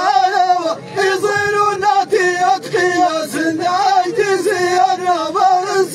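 A group of men singing an Amazigh chant in unison, holding long wavering notes that step up and down.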